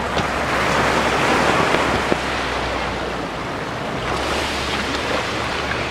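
Pacific Ocean surf breaking and washing up the beach, swelling louder about a second in, with low wind rumble on the microphone.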